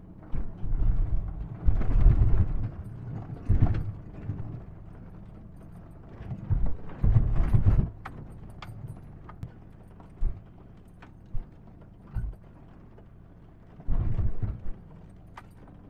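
Ford Ranger pickup truck jolting slowly over a rough, rutted salt-flat track: irregular bunches of dull thumps and knocks from the suspension and body, with scattered sharp clicks and rattles between them.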